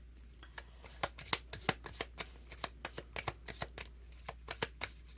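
Tarot cards being shuffled by hand: a quick, irregular run of card clicks and snaps, several a second.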